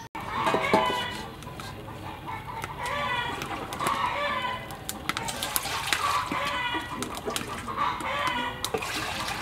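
Chickens clucking again and again, with a few sharp clicks in between.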